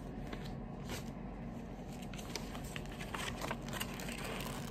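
Faint rustling and scattered light ticks of the paper pages of a spiral-bound book being handled, over a quiet steady room hum.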